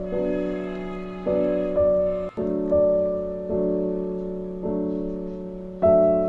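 Background piano music: soft, slow chords struck about once a second and left to fade, with a brief break in the sound a little past two seconds in.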